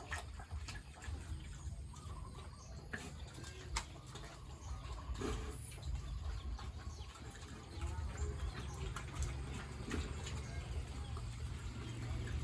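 Farm livestock calling faintly over a steady low rumble, with scattered light knocks.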